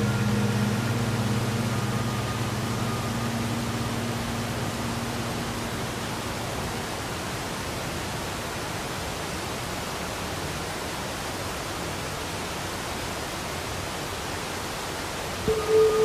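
Steady, even rush of a waterfall. Sustained music notes fade out over the first few seconds, and new music tones begin just before the end.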